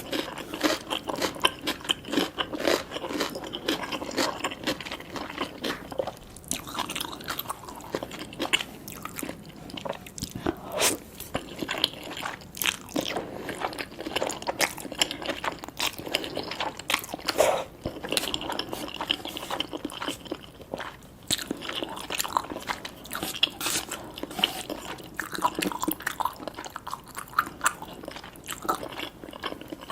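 Close-miked eating sounds: chewing spicy cheese noodles with tobiko, with frequent small crunches, pops and wet mouth clicks in a dense, uneven run.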